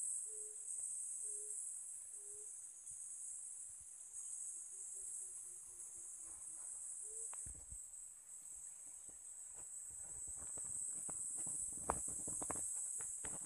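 A steady, high-pitched insect chorus of crickets at a freshwater pond edge. In the first half an animal gives low hoots, three short ones about a second apart and then a falling run of notes; in the second half there are scattered clicks and knocks.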